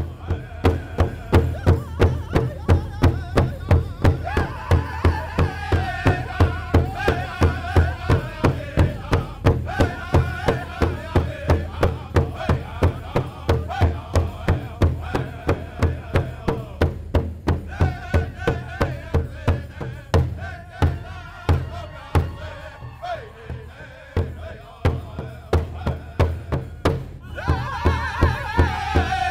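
Music: a drum beaten at a steady, fast pulse of about two to three strokes a second, with singing wavering above it. The singing drops away for a few seconds past the middle while the drum carries on, then returns near the end.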